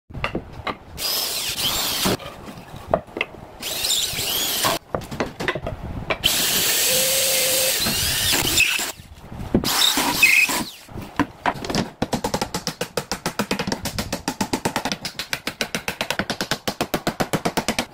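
A cordless drill driving screws into cabinet board panels in several bursts of one to two seconds each. Then, over the last six seconds, quick even hammer blows, about five a second.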